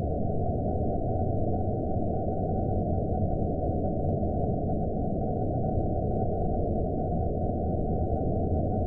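Horror-film ambience drone: a steady, muffled low rumble of noise with a faint thin high tone held above it, unchanging throughout.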